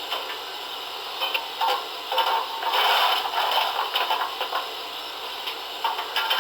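Recorded steam-locomotive sounds of a GWR 45xx 2-6-2T tank engine from a model's sound decoder, played through its small speaker. The sound is thin and comes in uneven surges.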